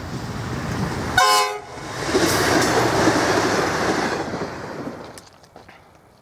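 V/Line Sprinter diesel railcar passing close at speed: a brief horn toot about a second in, then the loud rush of engine and wheels going by, fading away in the last second or so.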